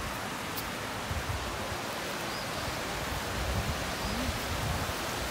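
Steady rush of running water from a mountain stream, with irregular low rumbles underneath.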